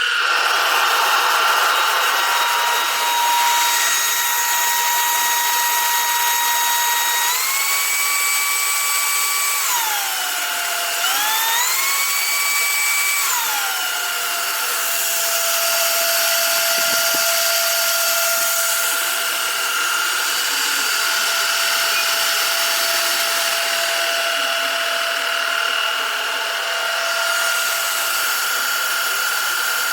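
Cordless stick vacuum's brushless motor running with a high whine that starts abruptly. The whine steps up in pitch, drops, rises again, then settles lower and steady for the rest.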